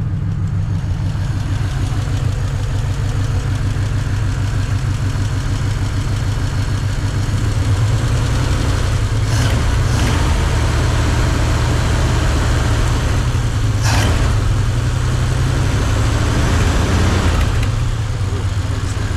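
1952 Ford's flathead V8 idling steadily, warmed up, a little louder from about eight seconds in until near the end. Two brief clicks cut across the engine sound partway through.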